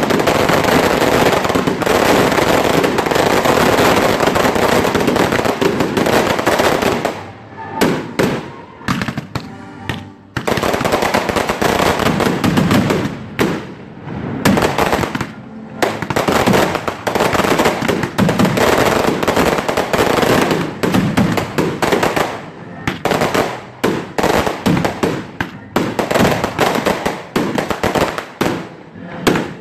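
Daytime fireworks barrage, a dense unbroken run of bangs and crackling. About seven seconds in it thins to a lull of scattered separate bangs, then rapid overlapping reports start up again and carry on.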